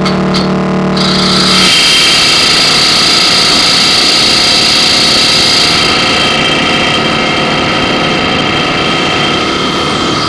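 Harsh noise music played through a vintage Neptune 610 audio mixer: a dense, loud hiss with several steady high whining tones held throughout. A lower hum drops out about one and a half seconds in.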